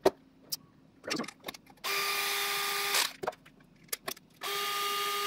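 Small electric screwdriver running in two bursts of about a second each at a steady whine, driving screws in, with light clicks of handling between.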